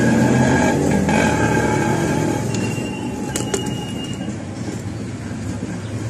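A motor vehicle engine running steadily, loud at first and slowly fading, with a couple of sharp clicks about three and a half seconds in.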